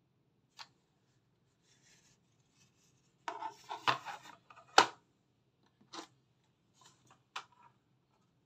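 Handling noise from cardboard boxes and plastic packaging trays with diecast model buses: scattered clicks, a short burst of scraping and rubbing a little before the middle, then a sharp knock as something is set down.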